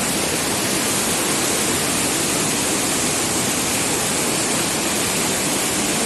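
Waterfall pouring: a loud, steady, even rush of falling water with no breaks.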